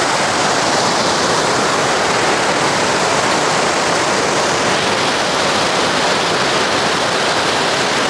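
River water rushing over boulders in white-water cascades: a loud, steady rush.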